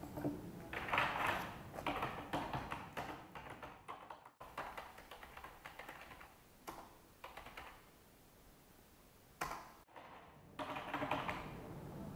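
Typing on a computer keyboard: quick runs of key clicks in bursts, with a quieter stretch in the middle before the typing picks up again near the end.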